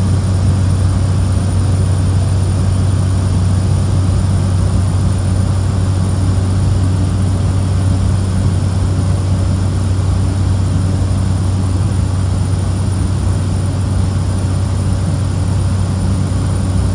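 Steady cabin drone of a Cessna 208 Caravan's single Pratt & Whitney PT6A turboprop engine and propeller in flight, heard from inside the cabin, with a strong low hum that does not change.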